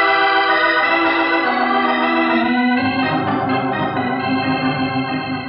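Organ music bridge between scenes: held chords with an inner line stepping downward, settling about three seconds in on a lower chord that pulses with tremolo and fades toward the end.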